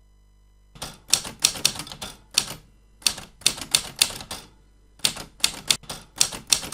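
Old typewriter typing: runs of sharp, quick key strikes with short pauses between the runs.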